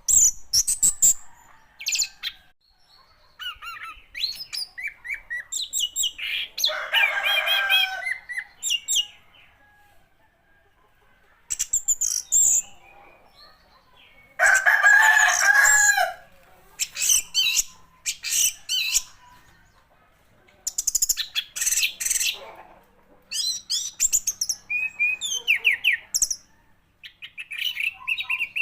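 Orange-headed thrush singing: a run of short phrases of quick, high whistled and chattering notes separated by brief pauses. Two longer, lower calls, about 7 and 15 seconds in, stand out as the loudest.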